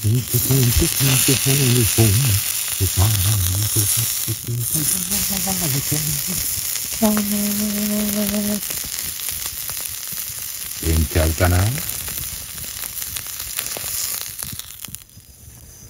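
Meat sizzling in a hot iron frying pan, a steady crackling hiss that drops away near the end. A low voice hums in short phrases over it, holding one note for a moment about halfway through.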